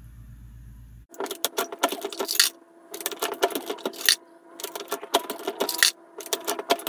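Dillon 550C progressive reloading press being worked by hand: a busy run of sharp metallic clicks, clacks and rattles that starts about a second in.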